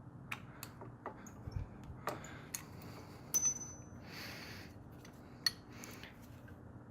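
Light, irregular metal clicks and clinks as a 3 mm Allen wrench pokes the pad retaining bolts out of a motorcycle rear brake caliper, with a short scrape about four seconds in.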